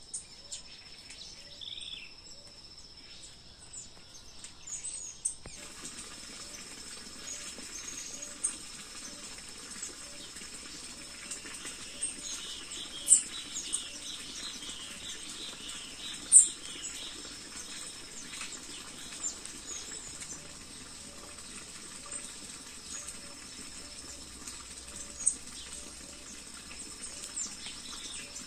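Birds chirping and singing in a morning chorus over a steady high insect buzz, with a faint low note repeating about once a second. A few sudden, louder sharp sounds stand out, two about halfway through and one near the end.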